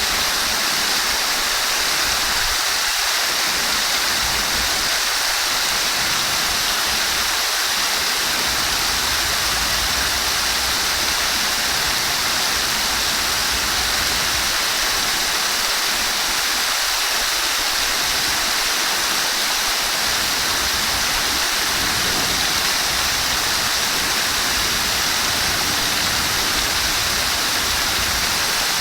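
Flowing water rushing steadily in an even, unbroken hiss.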